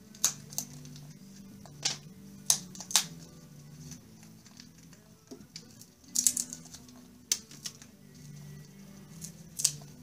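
Blue-and-gold macaw's beak biting and splintering a block of wood: irregular sharp cracks and snaps, with a quick cluster about six seconds in.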